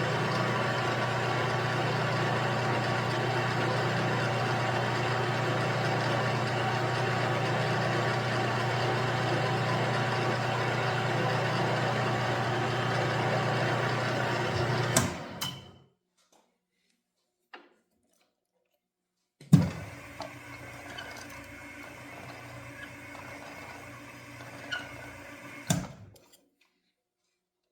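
Milling machine spindle running steadily with a low hum, stopping after about fifteen seconds. A few seconds later it runs again more quietly for about six seconds, with a knock where it starts and another where it stops.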